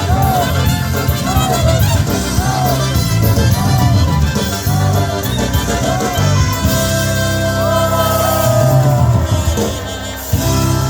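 Live polka band music with no lead vocal. It closes the song on a long held chord and then one short final hit near the end.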